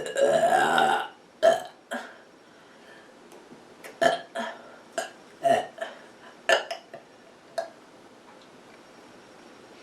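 A person burping on a full, stuffed stomach: a long drawn-out burp ends about a second in, then comes a string of about nine short burps at irregular intervals.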